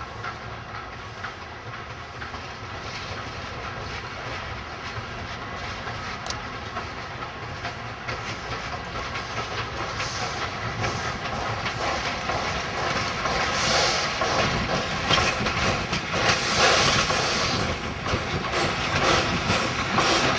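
Chinese 2-8-2 steam locomotive (SY or JS class) running tender-first past at close range, with steam hissing and wheels clicking over the rails, growing steadily louder as it nears.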